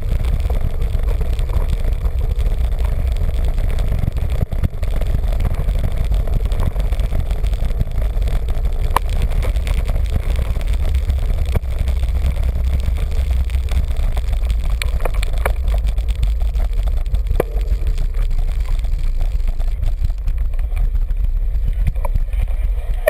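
Wind rushing over the microphone of a camera mounted on a moving road bike, a steady low rumble, with a few sharp knocks and rattles from the road surface and cobbles.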